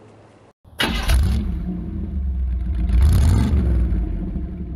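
Engine revving. It starts abruptly about a second in over a deep steady rumble, and the pitch rises and falls with another rev about three seconds in.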